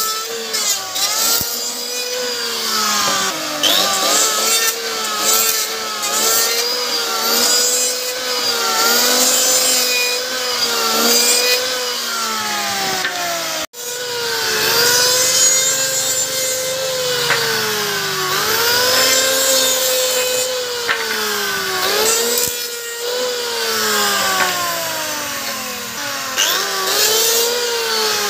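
Electric hand planer shaving wood in repeated passes: the motor's whine sags in pitch as each cut loads the blade and climbs back as it frees up, about every one to two seconds, over a rasping hiss of shavings. The sound cuts out for an instant about fourteen seconds in.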